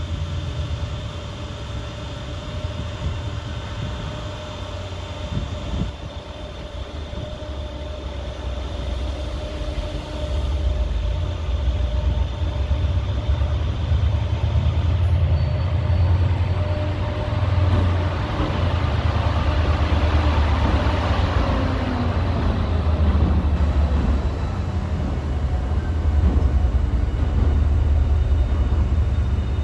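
Class 68 diesel-electric locomotive, with its Caterpillar V16 engine, approaching and running past close by. The low engine drone grows louder from about ten seconds in, and a rush of wheel and rail noise swells to its loudest around twenty seconds.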